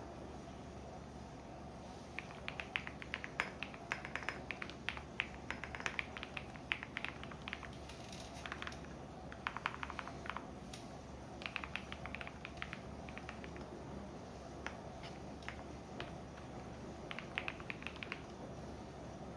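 Computer keyboard typing in bursts of quick clicks, with pauses between runs, over the steady low hum of a washing machine running.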